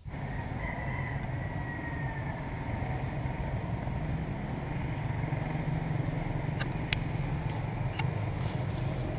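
A steady low rumbling noise throughout, with a rooster crowing once about a second in, its call trailing downward.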